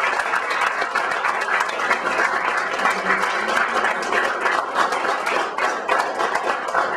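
A small group of people applauding: dense, steady hand clapping.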